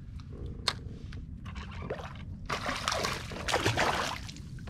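Water splashing and sloshing right beside a kayak in two close bursts about two and a half to four seconds in, after a single sharp click just under a second in.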